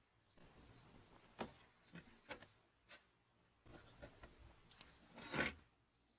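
Gloved hands handling an old wooden spirit level and a small metal part on it: soft rustling broken by several light clicks and taps, with a louder brief scrape a little over five seconds in.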